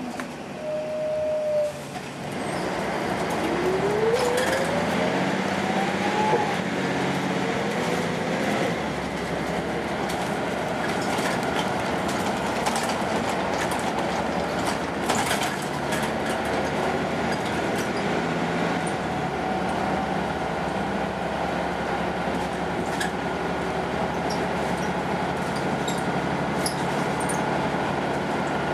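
Inside the cabin of a Volvo B10M single-deck bus as it pulls away and accelerates. Its mid-mounted six-cylinder diesel and driveline get louder, with a whine that climbs in pitch over a few seconds. It then runs steadily at road speed, with light rattles and clicks from the interior.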